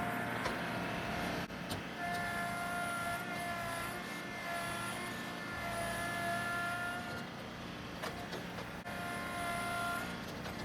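Tractor engine running under heavy load with a high steady whine layered over it. The whine comes in about two seconds in, breaks off briefly near the eight-second mark and returns.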